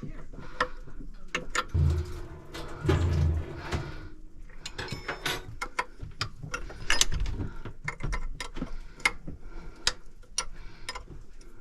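Hand tools clicking and clinking irregularly against metal fittings as the hose nipples are worked loose from a marine inboard engine's raw water pump, with a few dull knocks.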